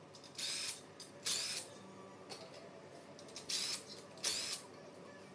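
Cordless drill with a socket unscrewing main cap bolts on an LS V8 engine block: four short whirring bursts, each spinning up with a brief rising whine, with short pauses between bolts.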